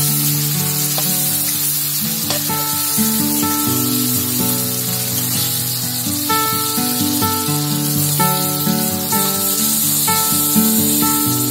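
Fish heads frying in hot oil in an iron kadai, a steady sizzle, with a few scrapes of a steel spatula turning them. Background music with a melody of held notes plays throughout.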